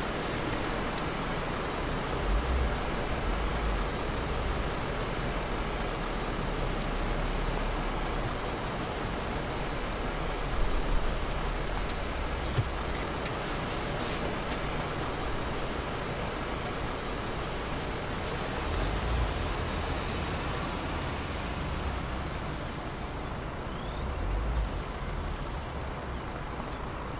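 Steady outdoor traffic noise with a low rumble that swells briefly a few times.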